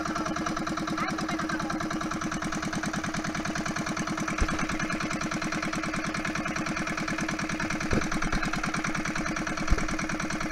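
Small engine of a motorized bangka (outrigger boat) running steadily under way, an even rapid chugging. A few sharp knocks cut through it, about four, eight and nearly ten seconds in.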